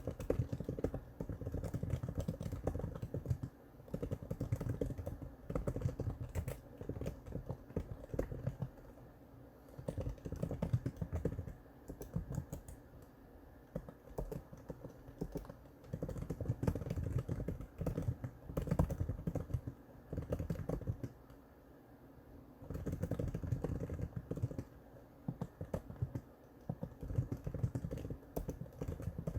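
Typing on the Apple Magic Keyboard for the 11-inch iPad: quick runs of key clicks from its scissor-switch keys, in bursts with short pauses between.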